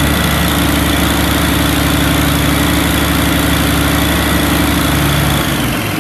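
Freshly rebuilt Caterpillar 3406E inline-six diesel running on a test stand, held at a steady raised speed above idle, then dropping back down about five and a half seconds in.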